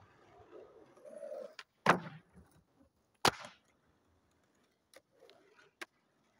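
Skateboard clacking on asphalt: two sharp, loud board impacts about a second and a half apart, then a few lighter clicks as the board rolls on.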